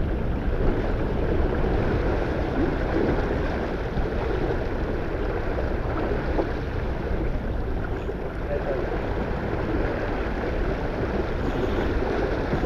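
Steady wind buffeting the microphone over the rush of water along a small sailboat's hull as it sails downwind.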